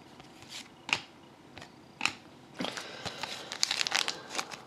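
A few light clicks of cards being handled, then from about two and a half seconds in, the foil wrapper of a sealed hockey card pack crinkling in the hands.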